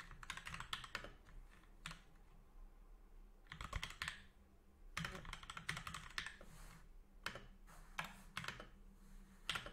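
Quiet typing on a computer keyboard, in short runs of keystrokes with brief pauses between them.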